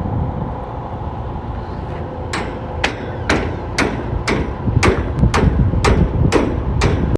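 A steady mechanical hum. About two seconds in, sharp knocks join it, evenly spaced at roughly two a second, and keep going until the sound cuts off abruptly.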